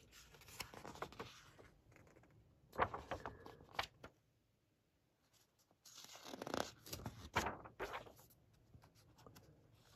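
Pages of a large hardback book being turned by hand: paper rustling and sliding in three short bursts, with a quiet gap in the middle.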